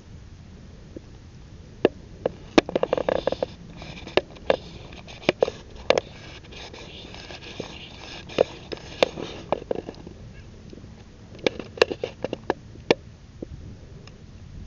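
A cat chewing and crunching food: irregular sharp clicks in short clusters, over a steady low rumble.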